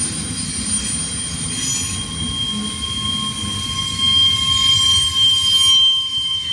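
Double-stack container train's well cars rolling past, the steel wheels rumbling on the rails with a steady high-pitched squeal held throughout.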